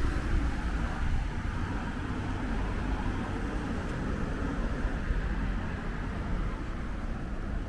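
Wind buffeting the microphone: a steady, fluttering low rumble over a broad hiss.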